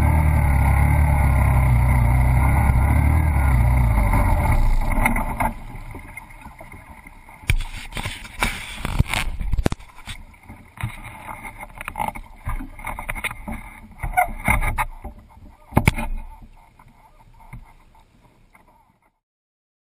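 1983 Honda ATC200E Big Red three-wheeler's single-cylinder four-stroke engine running as it pushes through deep floodwater, then dying about five seconds in: the water has got into its wiring. After it stops, only irregular splashing and sloshing of water around the machine, fading out near the end.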